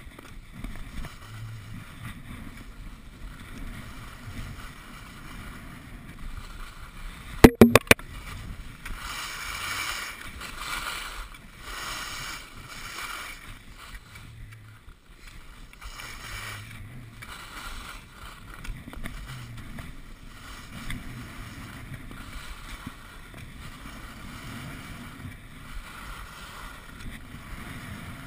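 Wind rushing over an action camera's microphone while skis slide and scrape on packed snow, swelling and easing through the turns. About seven and a half seconds in come a few sharp, loud knocks close to the microphone.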